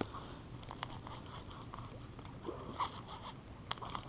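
Baitcasting reel being cranked against the pull of a hooked striped bass, its gears giving a faint, irregular scraping whir with small clicks.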